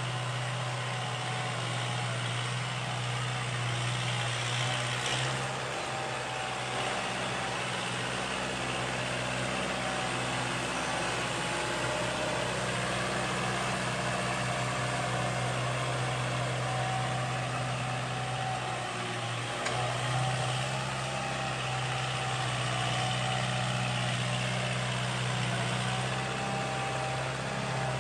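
Kubota tractor's diesel engine running steadily as it pulls a tine cultivator through dry soil, a constant drone with no change in pace.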